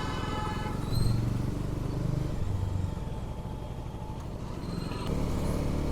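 Bajaj Dominar 400's single-cylinder engine running steadily at road speed on the highway. A short pitched tone sounds right at the start.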